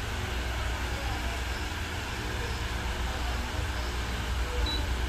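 Cosmos 16-WFCR wall fan running with a steady low rumble, and one short high beep near the end from the fan acknowledging a press on its remote control.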